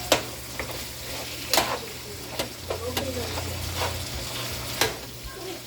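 Ground beef being stirred and broken up in a pan, over a faint frying sizzle. A utensil knocks against the pan about six times.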